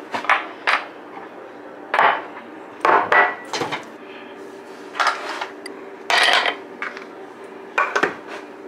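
Dishes and utensils being handled on a plate: about nine short knocks and scrapes, spaced irregularly.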